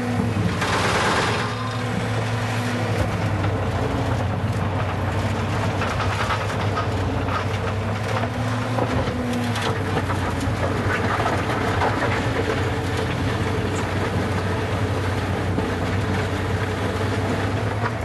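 Skid steer loader engine running steadily while its hydraulically driven Sweepster hopper broom, with nylon-and-wire brushes, sweeps gravel off asphalt, with a brief louder burst about a second in.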